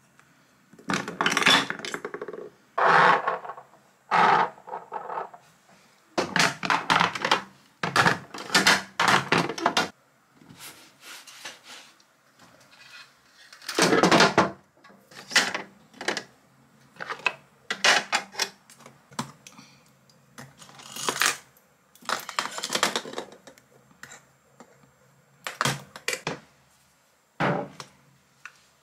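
Cosmetics and clear acrylic organizer pieces on a vanity table clinking and clacking as they are picked up, wiped and set down: glass perfume bottles, lipstick tubes and plastic drawers. The sound comes in clusters of sharp taps every second or two, with short quiet gaps between.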